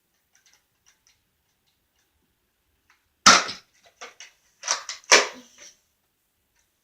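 Nerf Disruptor spring blaster fired twice, two sharp snaps about two seconds apart, the second near the end, with quieter clicks and clatter between and after them.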